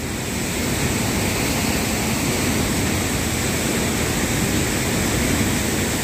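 Rain-swollen floodwater rushing fast over a bridge: a steady, dense rush of turbulent water.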